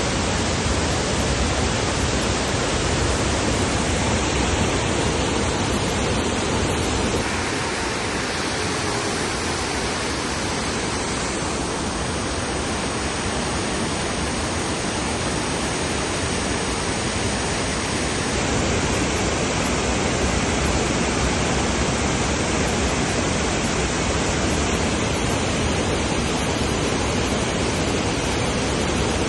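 Waterfall: the steady rushing of falling water, a dense even noise, a little softer for about ten seconds in the middle.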